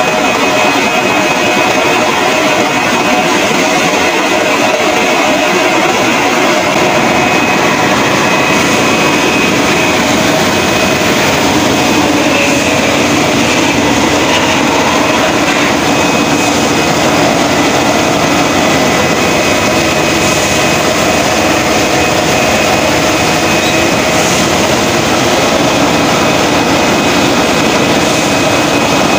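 Bottled-water production line running: the rotary filling and capping machine and bottle conveyors make a steady, loud mechanical noise with a few thin, steady whines in it.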